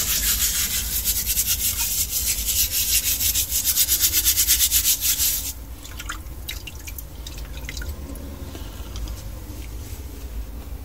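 A wire sponge scrubbing a gas hob's burner cap in rapid, even strokes to take off the flaking coating; the scrubbing stops about halfway through. After it come faint scattered clicks and drips of water.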